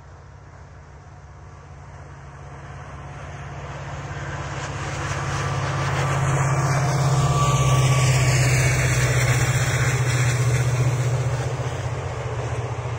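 Diesel locomotive hauling a passenger train as it approaches and passes. Its low engine drone grows steadily louder, peaks about two-thirds of the way in, then eases slightly as the coaches run past on the rails.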